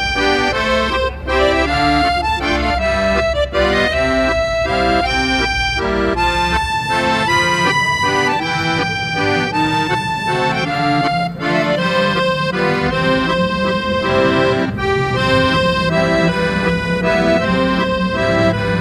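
Instrumental background music: a melody of held notes over a rhythmic accompaniment, with the deep bass dropping out about seven seconds in.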